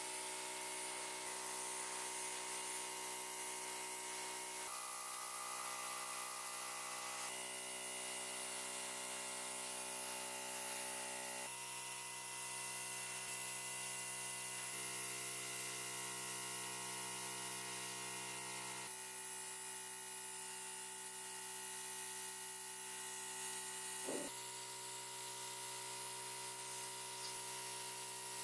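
Airbrush hissing as it sprays paint onto small plastic model parts, under soft background music of sustained chords that change every few seconds. A brief wavering sound comes late on.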